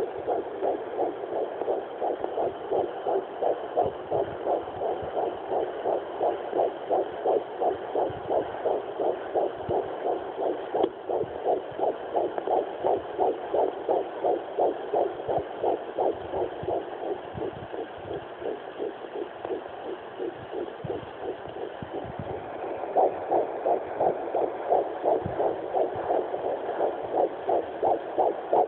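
Sonoline B fetal Doppler playing a fetal heartbeat at 10 weeks' gestation: a fast, even pulse of about three beats a second over a steady hiss. The beat gets louder about three quarters of the way through.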